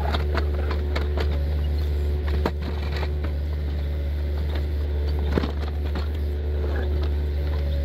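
Excavator engine running steadily under load while its toothed bucket pries up and breaks a concrete sidewalk slab, with several sharp knocks and cracks of concrete, the loudest about two and a half and five and a half seconds in.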